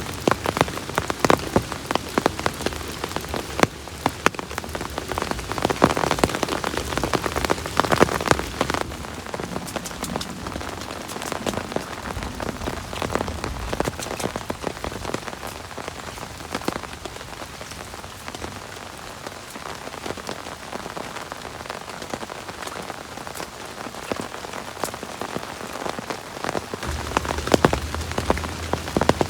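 Heavy rain pattering on a surface, a steady hiss full of sharp individual drop hits that grow heavier for a few seconds early in the stretch.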